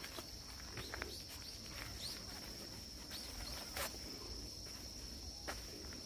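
Steady high-pitched insect trill over the woods, with scattered footsteps and scuffs on a dirt trail.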